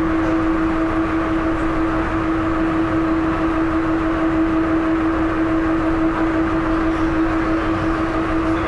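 Airport automated people mover cruising at a steady speed: a constant electric motor whine over the rolling noise of the car on its concrete guideway.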